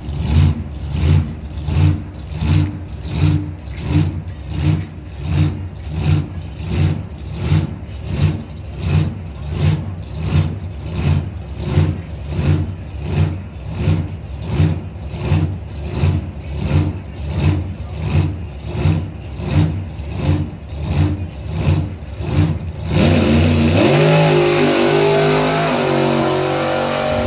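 Big-block Chevy drag-race engine of a Pontiac Tempest doorslammer running at the starting line with a regular pulsing about one and a half times a second. About 23 seconds in it launches into a loud full-throttle run, its pitch rising as it accelerates down the track.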